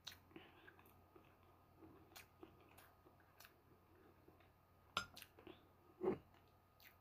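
Quiet chewing of a mouthful of noodles, with faint clicks of wooden chopsticks against the bowl. A sharp click comes about five seconds in and a duller knock a second later.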